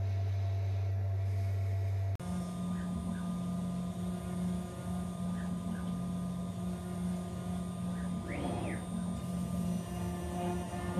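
A steady low hum, then, after a cut about two seconds in, the spindle of a rebuilt 6040 CNC router running at a steady pitch as a small end mill cuts grade 5 titanium (Ti-6Al-4V) under coolant spray. A brief rising-and-falling whine comes about eight and a half seconds in.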